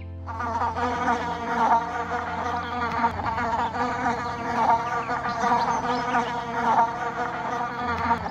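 Insects buzzing, several at once, in a continuous wavering drone.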